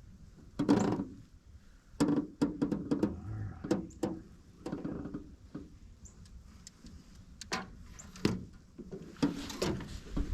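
Irregular sharp clicks and light knocks from gear being handled in a fishing boat, some landing as short dull thuds.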